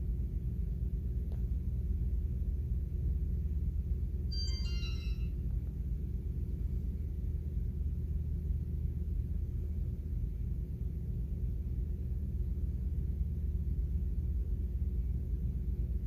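Steady low hum throughout, with a short chime of falling electronic tones about four seconds in.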